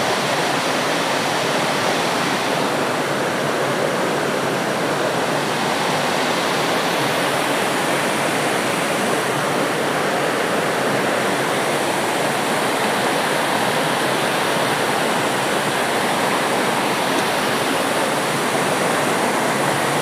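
Water of a rocky forest stream and small waterfall rushing and splashing over boulders, a steady, unbroken rush.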